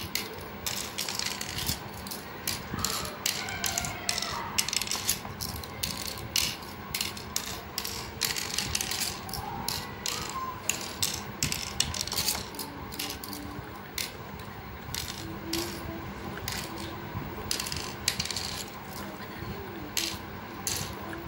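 Cowrie shells being dropped one at a time into the cups of a pallanguzhi board as the counters are sown around it. They make a run of light, irregular clicks and rattles, about two a second.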